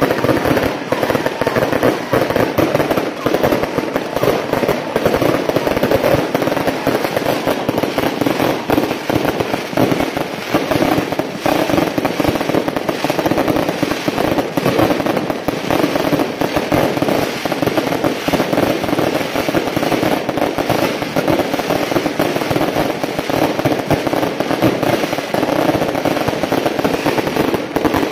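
Strings of firecrackers going off in a dense, unbroken rapid-fire crackle of bangs, loud and without a pause.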